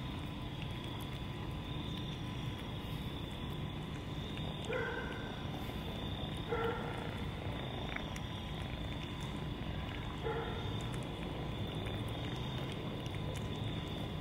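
A kitten eating wet cat food over a steady low rumble, with three short pitched calls spaced a few seconds apart.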